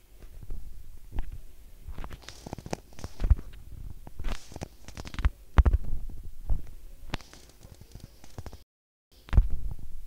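Irregular soft thumps and short rustles: handling noise of a phone whose screen is being tapped.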